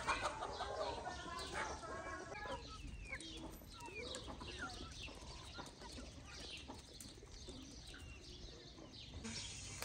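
Faint birdsong: many short chirps and quick falling calls, with a denser cluster of calls in the first two seconds.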